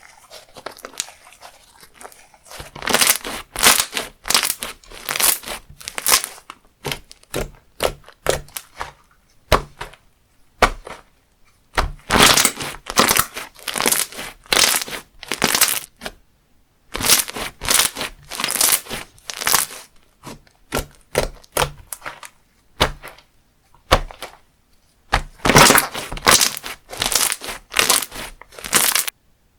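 Textured slime, with foam balls or beads mixed in, squished and pressed in the hands, giving dense runs of crackles a few seconds long with short pauses between. It stops abruptly just before the end.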